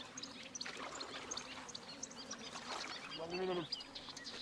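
Lakeshore ambience: many short high bird chirps over faint lapping water, with one brief lower-pitched animal call a little after three seconds.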